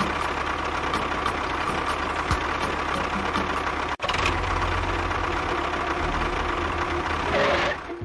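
Small motor of a miniature DIY tractor or bulldozer model running steadily, broken off for an instant about four seconds in and rising briefly near the end.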